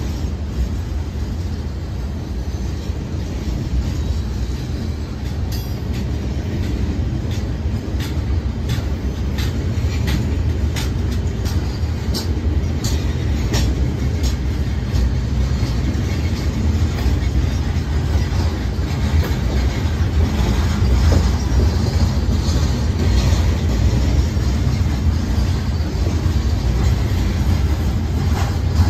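CSX freight train of open-top hopper cars rolling past: a steady low rumble of steel wheels on rail that grows louder toward the end. From about 6 to 15 seconds in it is broken by a run of sharp, irregular clicks and clanks.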